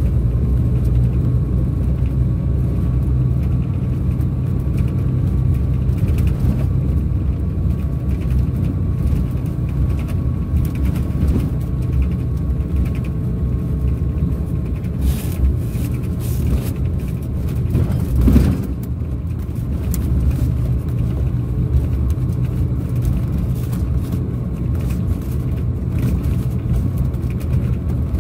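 Scania DC13 inline-six diesel of a Scania K400 coach heard from inside the cabin while driving, a steady low drone. A faint whine slowly falls in pitch over the first half, and a brief thump stands out about eighteen seconds in.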